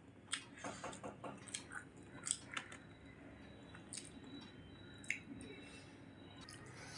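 Eating sounds of rice and egg curry: wet squishing, lip smacks and chewing. A quick run of short smacks comes in the first three seconds, then it goes quieter with a few single clicks.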